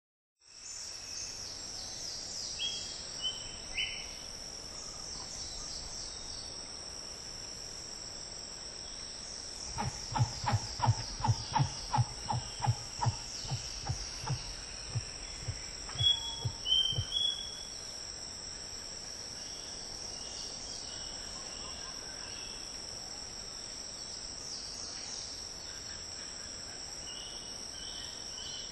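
Steady high-pitched rainforest insect chorus. In the middle, a run of low pulses comes two or three a second for about seven seconds.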